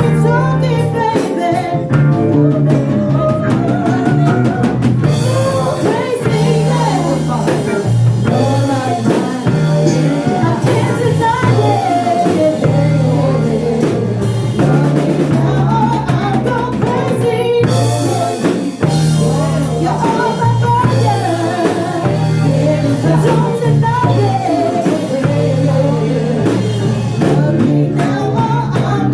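A band playing a song: a drum kit keeps a steady beat under a pulsing bass line and guitar, with a melodic lead line gliding over the top.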